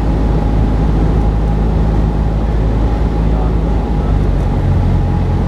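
Cessna 172's piston engine and propeller droning steadily in cruise, heard from inside the cabin, the low hum shifting slightly near the end.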